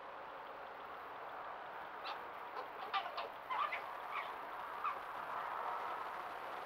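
Red foxes giving a quick run of short, clucking, chattering calls, bunched from about two seconds in to near five seconds, over a steady background hiss.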